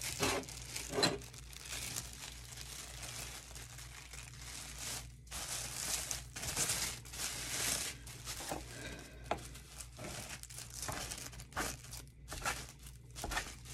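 Press'n Seal plastic wrap crinkling and rustling as it is handled and rolled around a log of whipped body butter. The crinkling comes in irregular bursts, busiest about halfway through.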